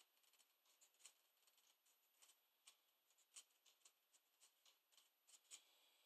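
Near silence, with faint, scattered light clicks and rubs from a plastic Nerf barrel being handled.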